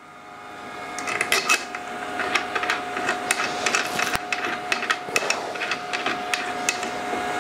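Thumb screws being threaded in and tightened on a resin printer's vat, with the vat being handled: a quick, irregular run of small clicks and scrapes starting about a second in, over a steady tone.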